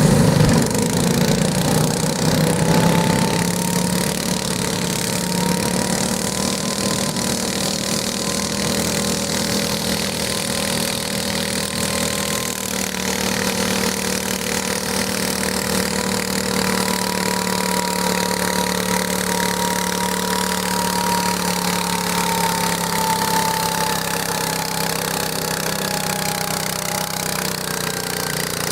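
Garden tractor engine running steadily under load, with a high whine that drifts slowly up and down in pitch. It is loudest in the first couple of seconds, then holds even.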